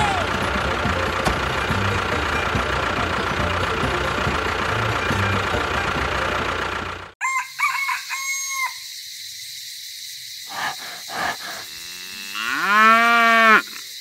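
Background music with a steady beat, cut off abruptly about halfway through. Farm-animal sounds follow: a few short calls from chickens, then near the end one long cow moo that rises in pitch.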